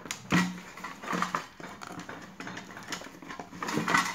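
A sandwich maker's metal inner plate and plastic housing clicking, knocking and rattling as they are handled and fitted together, in an irregular series of clunks with the loudest about a third of a second in and just before the end.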